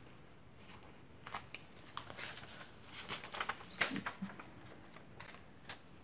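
Paper pages and inserts of a handmade junk journal being handled and turned, giving soft rustles and short faint crinkles and taps scattered through, a little busier in the middle.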